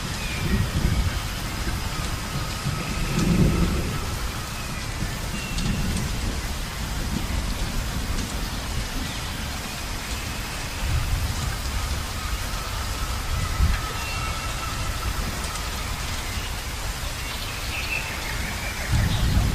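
Steady rain with low rolls of thunder swelling several times, and a few faint high tones now and then.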